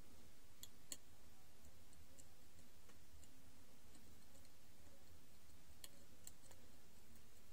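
Faint, scattered clicks of multimeter probe tips touching component pins on a circuit board, over a low steady hum.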